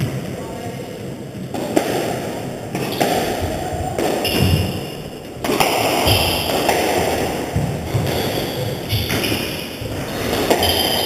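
A squash rally: the ball is struck by rackets and smacks off the court walls about once a second, with the players' shoes scuffing the wooden floor. It all rings in the hard-walled court. The hitting starts a couple of seconds in.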